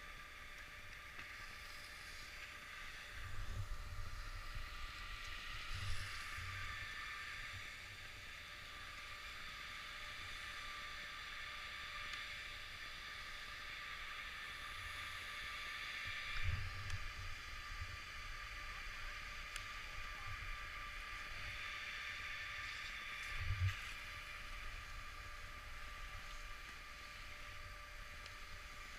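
Wind buffeting a camera microphone in low gusts, strongest four times. Under it runs a steady faint hiss with a thin, even hum.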